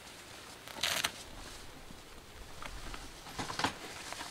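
A few brief rustles and scrapes, the loudest about a second in and another about three and a half seconds in.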